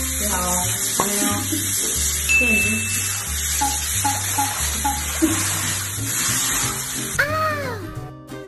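Handheld shower spraying water steadily, with background music over it. About seven seconds in, the spray cuts off and a short swooping sound effect plays.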